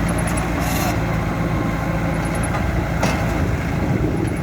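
Bulldozer's diesel engine running steadily with a low rumble, and a single sharp knock about three seconds in.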